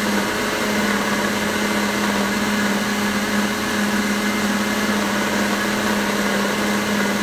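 Countertop blender motor running steadily, mixing a thin liquid pizza batter, with an even hum under a steady whir.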